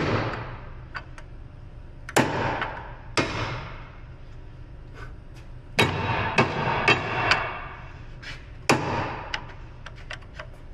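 Hammer blows on a steel punch, driving a rust-seized bolt out through a Subaru rear knuckle and lower control arm bushings. The blows come in bursts with pauses between: two strikes, then a quick run of four, then one more, each ringing briefly, with faint light taps in between.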